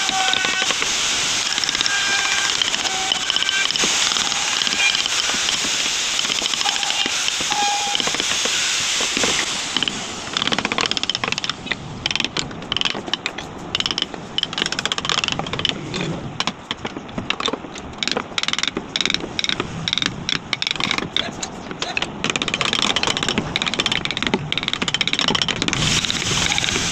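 Wooden mallet tapping a carving gouge as it cuts into a wood relief panel. From about ten seconds in there are many quick, sharp knocks, several a second.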